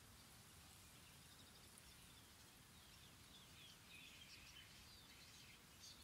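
Faint outdoor ambience with distant birds chirping: quick, high twitters that become busier about halfway through.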